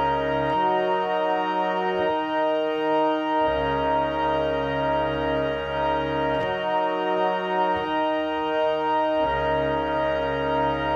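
Background music: held, organ-like chords that shift to new chords every second or two.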